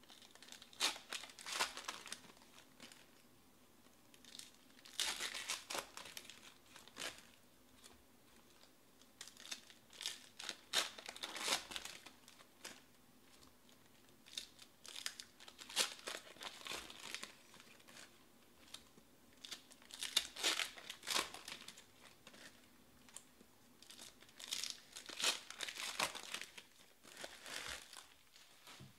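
Foil baseball card pack wrappers being torn open and crinkled by hand, one pack after another, in crisp crackling spells about every four to five seconds.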